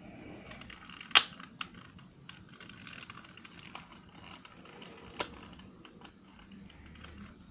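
Light plastic clicks and scratching as a 2×2 Rubik's Cube is handled and its sticky stickers picked at, with two sharper clicks, one about a second in and one about five seconds in.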